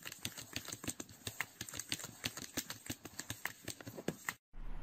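Rapid, irregular light taps and clicks, several a second, from a cat pawing and clawing at a computer screen. They cut off abruptly near the end.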